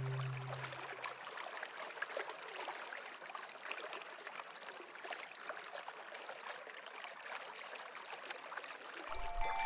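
Stream water trickling and gurgling in a steady, even babble. Low soft-music notes fade out about a second in, and soft sustained music tones come back in near the end.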